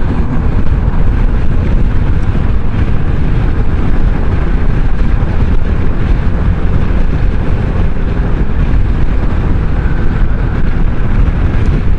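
Steady wind and road noise of a Kymco Xciting 500 maxiscooter riding at speed, with wind buffeting the microphone.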